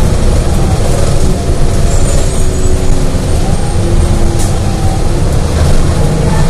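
Interior of a 2018 Gillig Low Floor 29-foot CNG transit bus under way: the engine and road noise make a steady, loud low rumble, with faint steady tones over it.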